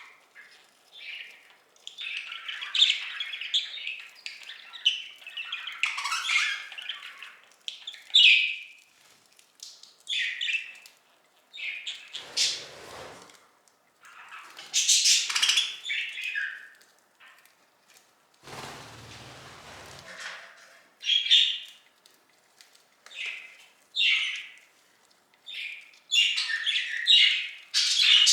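Budgerigars chirping and squawking in short, irregular bouts, with a couple of brief rustling noises around the middle and a busy run of chatter near the end.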